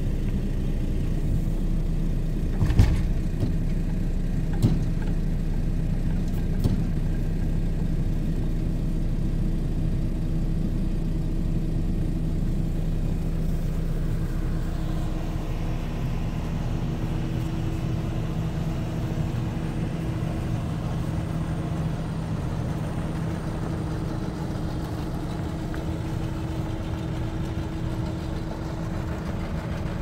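A heavy diesel engine running steadily, with three sharp knocks in the first seven seconds.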